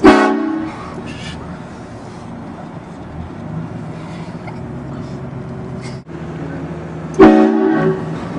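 Vehicle-mounted train air horn blasted twice: a loud multi-note blast right at the start that fades over under a second, and a second blast of about the same length about seven seconds in.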